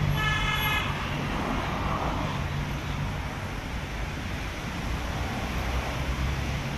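Steady outdoor traffic noise with a low engine hum underneath. A brief, flat, high tone lasts under a second near the start.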